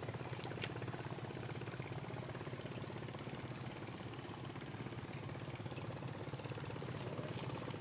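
A small engine idling steadily with a low, even chug. A couple of sharp clicks come about half a second in.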